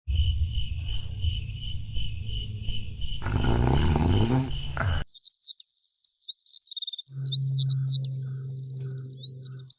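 Crickets chirping in a steady rhythm, about three chirps a second, over a low rumble that rises in pitch just before a sudden cut. After the cut, birds chirp, joined by a steady low hum for the last few seconds.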